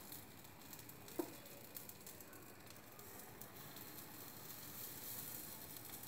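Faint sizzling and fine crackling of hot oil in a non-stick paniyaram pan as spoonfuls of fermented rice and urad dal batter are dropped into the oiled cups, with a brief tap about a second in.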